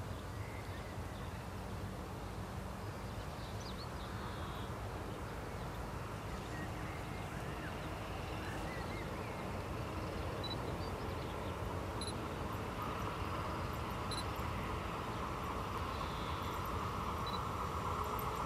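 A long train hauled by two SBB Re 420 electric locomotives approaching from a distance, its sound swelling slowly, with a steady whine building over the last third. Birds chirp now and then.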